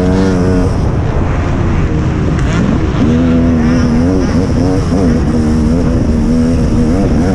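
Motocross bike engine revving, its pitch climbing and dropping as the throttle is worked, held at a steady pitch for a few seconds in the middle.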